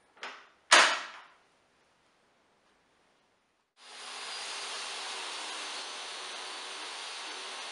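Two clacks as the table saw's rip fence lock lever is snapped shut, the second loud and sharp with a brief ring. About four seconds in, the DeWalt DWE7491RS table saw's motor starts up and runs steadily.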